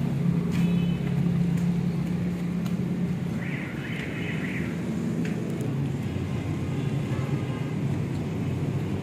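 Steady low drone of an engine running, unchanging throughout, with a brief higher chirping sound about three and a half seconds in.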